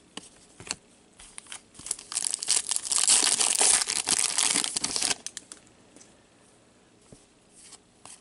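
Foil trading-card pack wrapper crinkling loudly as it is torn open, from about two seconds in to about five seconds in. Before and after it, faint clicks of cards being handled.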